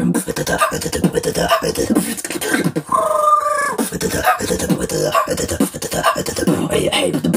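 Solo beatboxer performing a steady beat of percussive mouth sounds, with a short held pitched vocal tone about three seconds in before the beat picks up again.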